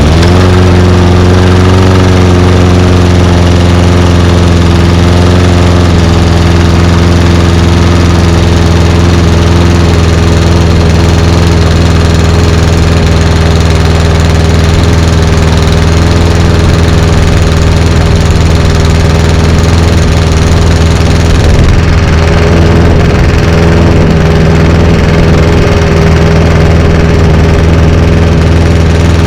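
Honda HRX217TDA lawn mower engine, fitted to a Toro 21442 mower deck, running steadily just after a cold pull-start on choke. The tone shifts slightly about six seconds in and again near the end.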